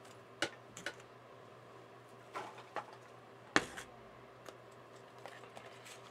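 Sparse, irregular clicks and taps, like computer keyboard keys or a mouse, about eight in all; the loudest is a heavier tap with a low thump a little past halfway. A faint steady hum runs underneath.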